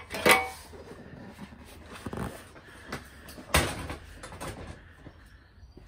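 Metal frame of a Vauxhall Vivaro van seat clunking and knocking as it is lifted off its seat base and set down. A loud knock with a brief ring comes about a third of a second in, smaller knocks follow, and a sharper thump comes about three and a half seconds in.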